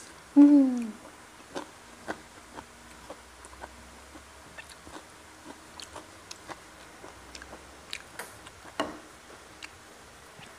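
Close-miked eating sounds: a person chewing fried catfish, with scattered small clicks of mouth and fingers picking at the fish. Near the start there is a short hum that falls in pitch, the loudest sound.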